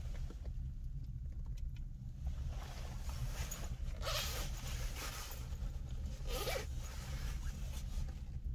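A zipper pulled twice, each pull about half a second long, about four seconds in and again about six and a half seconds in, over a steady low rumble.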